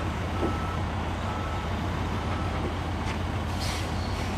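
Truck engine running steadily, with a faint backup alarm beeping about once a second as a high-rail utility truck maneuvers to get its rail wheels onto the track.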